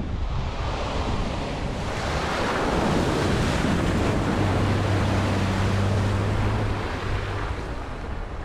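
Jeep Wrangler driving through a muddy water crossing, its front tyre throwing up a rushing spray of water. The engine's low steady hum comes through under the splashing partway in.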